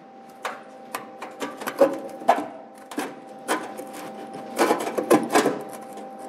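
Irregular metallic knocks, clunks and scrapes as a sheet-steel tractor fender and a welding magnet are shifted and pushed into alignment, louder in two clusters about two seconds in and again near the end. A steady hum runs underneath.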